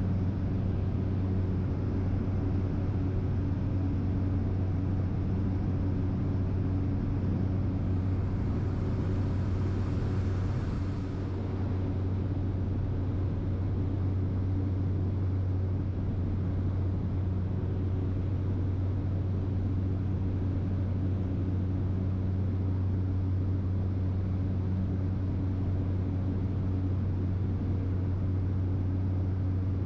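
Steady cabin drone of a light propeller aircraft in cruise: a deep, constant engine and propeller hum with a few steady tones over airflow hiss. About ten seconds in, the hiss briefly swells and then eases.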